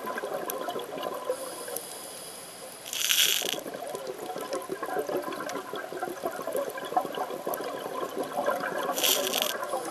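Underwater sound of a diver's scuba regulator: two short, loud hissing breaths about six seconds apart, over a steady underwater crackle and bubbling.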